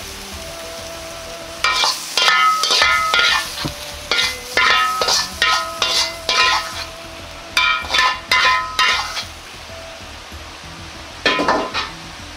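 A metal utensil scraping and knocking against a wok as the stir-fried daikon and tuna are served out onto a plate. The scraping comes in four bursts of quick strokes, the last one short, near the end.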